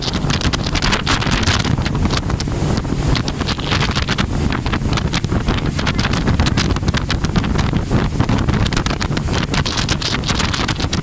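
Wind buffeting the microphone from the bow of a moving open boat, a steady rush with irregular gusts, over the low rumble of the boat running across the water.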